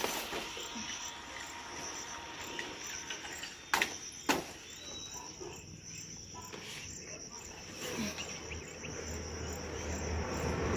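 Steady high-pitched insect drone, like crickets, with two sharp snaps about half a second apart a little under four seconds in.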